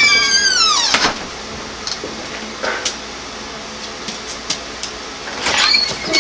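A door's hinges squeaking in a falling, wavering squeal as the door swings, ending about a second in, followed by a few light clicks and knocks.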